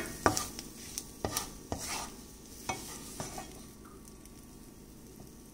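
Wooden spatula scraping and knocking against a nonstick frying pan while scooping up scrambled eggs: a handful of short scrapes and taps over the first three seconds or so.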